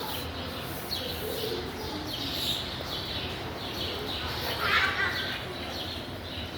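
Small birds chirping repeatedly over a faint murmur of voices, with one louder high call near the end.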